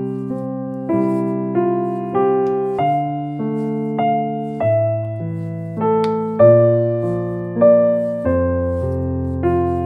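Background piano music: notes struck about once or twice a second over held chords, each note fading away.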